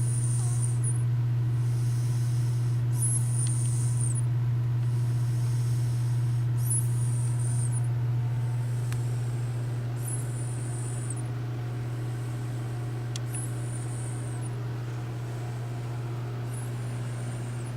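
A sleeping person snoring, a high whistle of about a second on each breath, recurring about every three and a half seconds, over a steady low hum.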